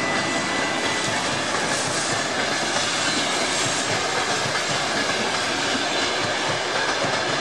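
Passenger coaches of a Russian Railways train rolling past on curved track: a steady rumble and clatter of steel wheels on the rails, with a brief thin high tone in the first second.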